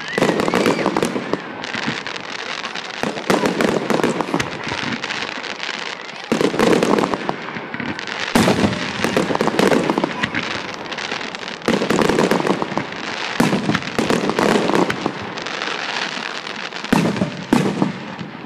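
Fireworks display: a dense, continuous crackle of bursting stars, with heavier shell bangs every two to three seconds.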